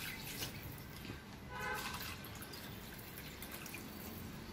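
Plastic spatula stirring soaked rice and chicken in water in a nonstick pan: faint wet sloshing and dripping, with small clicks. A short, faint pitched sound about a second and a half in.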